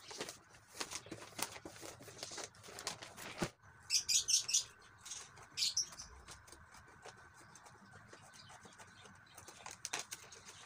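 Gift-wrap paper rustling and crinkling as it is smoothed and folded around a cardboard box. About three and a half seconds in the sound breaks off, followed by a few sharp, crisp crackles of paper and then quieter handling.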